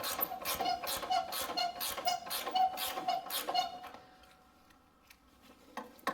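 An 18 mm ratcheting wrench clicking steadily, about four clicks a second with a slight metallic ring, as it is worked back and forth on a rusted control-arm bolt to break it free. The clicking stops a little past halfway, with one more click near the end.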